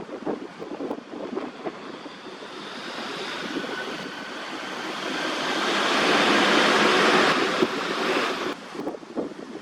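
A gust of wind blowing through the trees with some wind noise on the microphone. It is a steady rushing hiss that builds over several seconds and then falls away sharply near the end.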